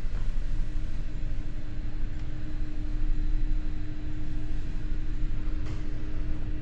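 Steady low rumble of the electric hybrid car ferry MF Matre under way, heard from inside its passenger lounge, with a constant hum over it.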